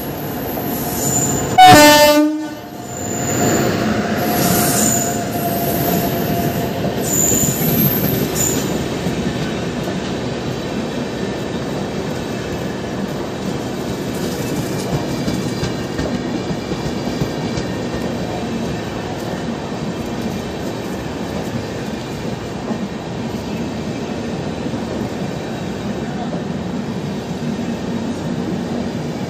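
Train horn sounds one loud, short blast about two seconds in as the Shatabdi Express enters the platform. This is followed by the steady rumble and clatter of its coaches rolling alongside.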